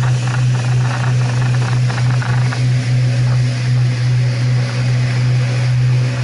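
Twin-engine jet drive of a Sea Ray 240 Sport jet boat running at speed: a steady, unbroken low drone mixed with rushing water and wind noise.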